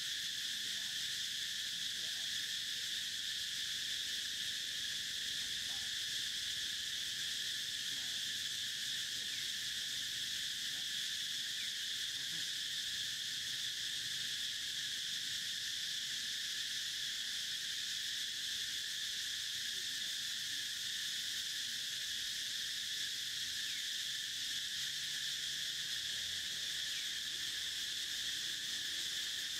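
Steady, high-pitched insect chorus that does not change, with a few faint short chirps over it.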